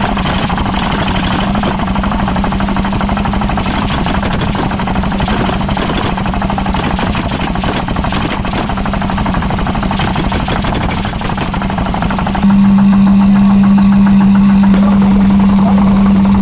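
A motor-driven workshop machine running steadily, with a constant low hum over a dense, rapid rattle. About twelve seconds in it suddenly gets louder, the hum stronger and the top duller.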